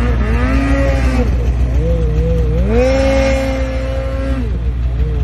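Snowmobile engine revving up and down as the sled carves through deep powder on a steep slope. Past the middle it climbs and is held at high revs for about two seconds, then drops back.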